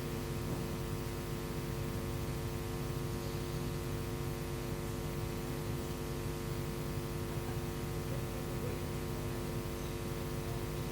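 Steady electrical mains hum with a low buzz, unchanging throughout, as picked up through the sound system.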